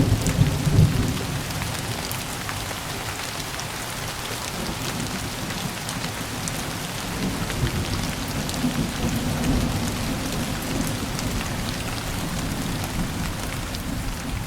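Steady rain falling, with individual drops ticking sharply on a surface. A low rumble of thunder is loudest in the first second or so and dies away, leaving only the rain.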